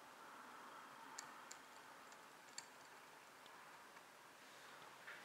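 Near silence: faint room tone with a few small, faint clicks in the first half.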